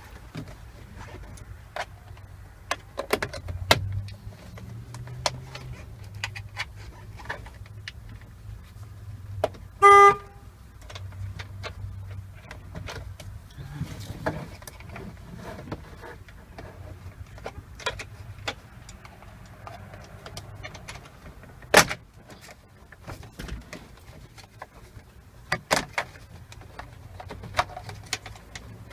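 Plastic steering-column covers on a Chevy pickup being pried and forced off by hand: scattered clicks, snaps and knocks. About ten seconds in, a car horn sounds once, briefly and loudly.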